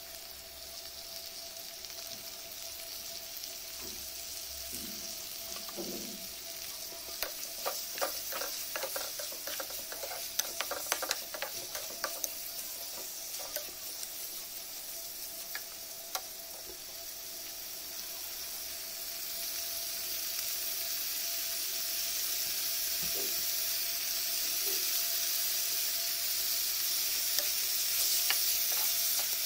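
Raw chicken pieces frying with onions in hot oil, sizzling steadily while a plastic spatula stirs them, with a busy run of scraping and clicking about a third of the way in. The sizzle grows louder toward the end.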